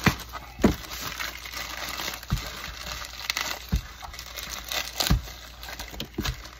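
A plastic bubble mailer being handled and opened, crinkling and rustling, with several sharp knocks as the package is moved about.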